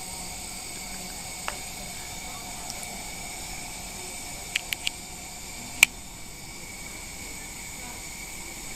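Steady hiss with a few faint steady tones, the background noise of NICU equipment. A few short sharp clicks break through: one about a second and a half in, three quick ones near the middle, and a louder single click just after.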